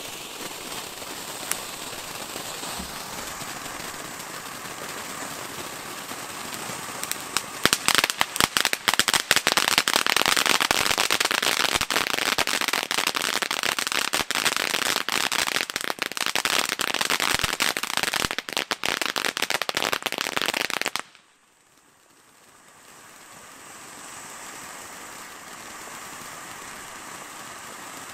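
Two Jorge Margarita ground fountains spraying sparks: a steady hiss, with dense crackling from about a quarter of the way in. The sound cuts off suddenly about three-quarters through, then a quieter hiss builds back up.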